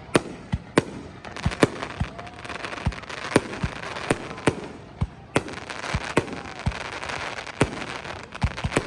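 Aerial fireworks going off in quick succession: a dozen or so sharp bangs at irregular intervals, with a continuous crackle between them.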